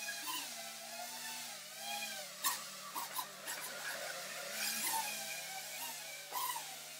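Small FPV drone's motors and propellers whining, the pitch rising and falling with the throttle as it manoeuvres, with a few short knocks along the way.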